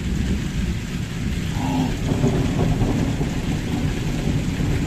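Torrential rain pouring down, with thunder rumbling underneath.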